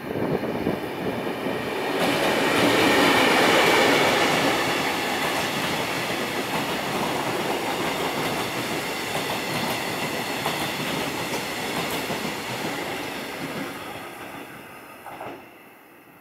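A train passing close by: its rumble and wheel noise swell to a peak a few seconds in, then fade away steadily over about ten seconds. A brief knock comes near the end.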